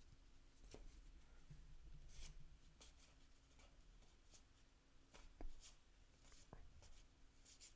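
Faint handling of baseball cards, slid one at a time through an opened pack: soft paper swishes and small clicks, irregular, with one a little louder about five and a half seconds in.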